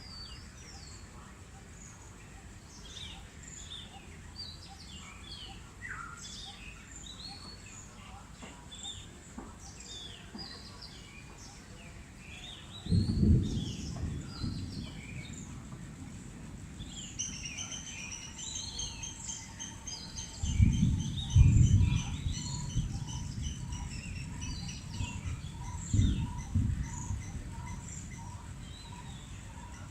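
Several birds chirping and calling outdoors, short high chirps throughout; in the second half one bird repeats a quick series of notes while another repeats a lower note steadily. Low rumbling bursts break in about halfway through, again at around two-thirds, and once more later; these are the loudest sounds.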